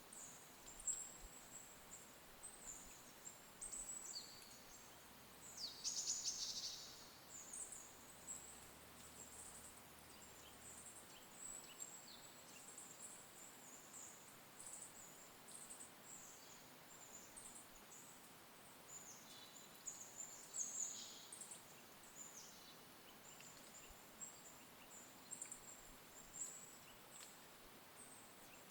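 Faint, high-pitched chirps and short calls of small birds scattered throughout, with a louder, denser trill about six seconds in.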